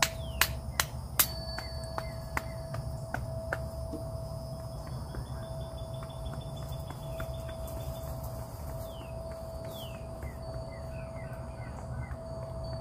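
A hand tapping and slapping on the arms, several sharp slaps a second, the loudest near the start, thinning out and stopping about three and a half seconds in. Behind it, outdoor ambience with a steady insect hum and short bird chirps later on.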